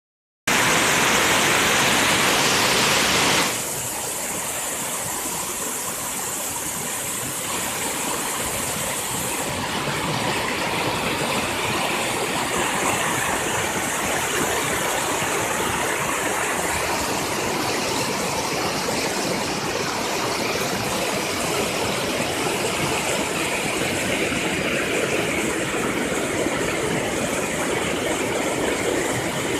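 Swollen, muddy creek in flood rushing over rapids: a steady, loud rush of water, loudest for the first three seconds and a little quieter after.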